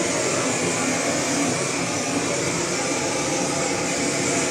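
Gas blowtorch running with a steady hiss, singeing the hair off a hanging carcass.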